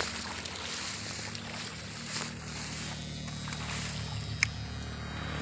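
A steady low engine hum with faint water sloshing as people wade through shallow canal water, and one sharp click about four and a half seconds in.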